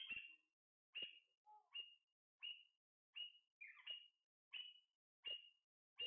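Alexandrine parakeet giving a faint run of short, sharp, high-pitched calls, about nine of them, evenly repeated roughly every two-thirds of a second.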